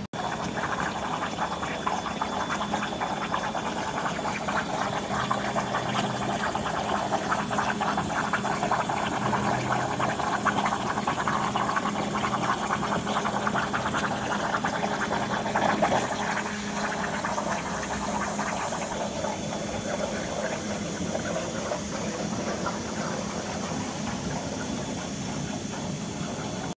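A 200 A Thermal Dynamics Ultra-Cut XT plasma arc on a CNC table cutting 10 mm mild steel: a steady rushing noise full of fine crackle, with a low steady hum underneath.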